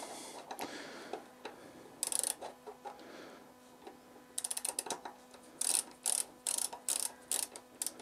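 A small torque wrench's ratchet clicking in several short bursts of rapid clicks as it tightens the front axle pinch bolts on a BMW R1200 GSA fork leg, a little at a time.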